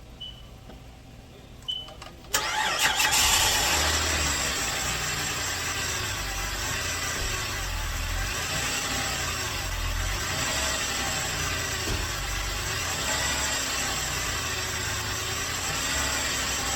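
A 2010 Chrysler 300's engine cranks and catches about two seconds in, runs loudest for a moment, then settles into a steady idle. This is its first start after a radiator replacement and coolant refill.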